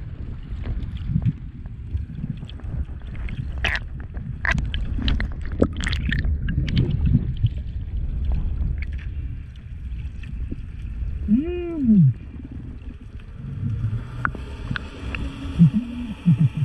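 Underwater sound through a GoPro housing: a steady low rush of water with scattered clicks and crackles. About twelve seconds in, a killer whale (orca) gives a short call that rises and falls in pitch, and a few more short rising-and-falling orca calls follow near the end.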